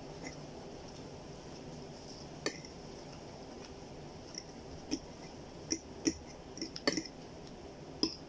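Eating noodles: sharp clicks and clinks of utensils against a plate, one about a third of the way in and a cluster of them in the second half, over a steady low hiss.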